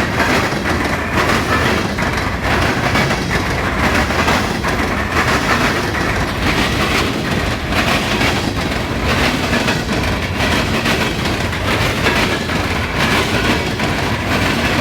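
Coal train's cars rolling past at speed, their wheels hammering over the diamond crossings in a continuous run of rapid, irregular bangs over a steady rail roar.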